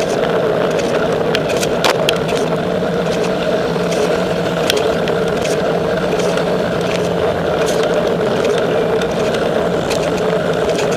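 Steady rolling and rushing noise of a bicycle riding on an asphalt road, with frequent sharp clicks and rattles scattered throughout.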